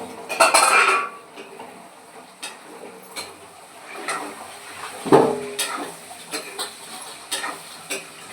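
Metal spoon scraping and knocking against a cooking pan while stirring vegetables, with a loud scrape at the start, a sharp knock about five seconds in, and light taps between.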